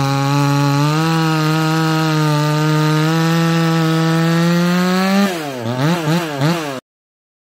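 Two-stroke chainsaw running at high revs, sawing wood, its pitch creeping up slightly. About five seconds in it is revved down and up in several quick swings, then the sound cuts off abruptly.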